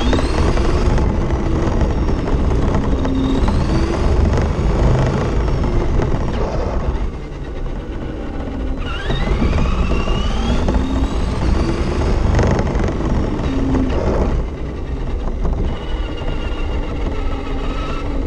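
Losi 22S-SCT radio-controlled short course truck driving on asphalt, heard from a camera mounted on its body. The electric motor's whine climbs steeply in pitch as the truck accelerates, twice, with lulls in between where it eases off. Underneath runs a steady rumble of tyres and body vibration.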